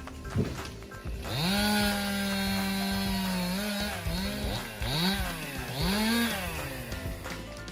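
Two-stroke chainsaw engine revved up to full throttle and held there for about two seconds, then blipped three times, its pitch rising and falling with each blip.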